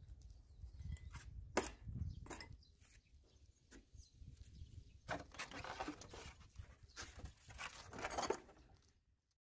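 Styrofoam packing rubbing and squeaking as the drill press's cast-iron parts are worked out of it, after a few sharp knocks of parts being handled. A low wind rumble on the microphone runs underneath.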